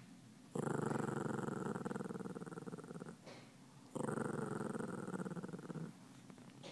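Shih Tzu growling, two long rumbling growls of about two to three seconds each with a short pause between: an angry warning growl.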